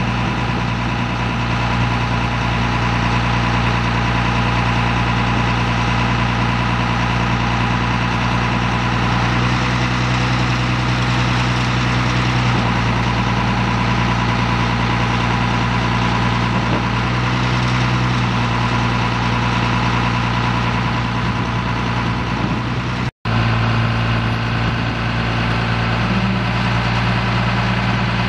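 Caterpillar 3116 inline-six diesel engine of a rollback truck running steadily at idle while the PTO-driven hydraulics tilt and slide back the bed, its drone shifting slightly now and then. The sound cuts out for a split second about 23 seconds in.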